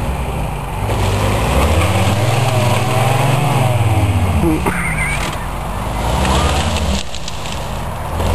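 An engine running and being revved up and down, its pitch rising and falling in slow swells every few seconds.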